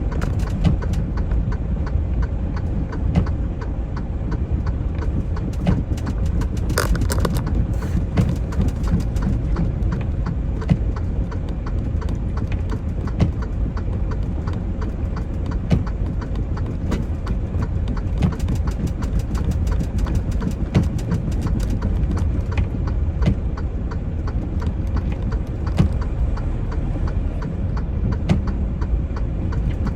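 Semi truck's diesel engine running, heard as a steady low rumble from inside the cab, with many irregular sharp clicks and ticks throughout.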